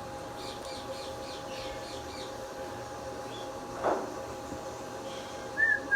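Indian ringneck parrot giving a quick run of faint high chirps, then a loud whistled note beginning near the end.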